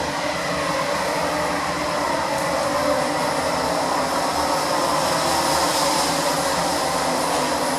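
Copenhagen Metro train running in the station, a steady loud rumble and whine that builds up in the first seconds and then holds.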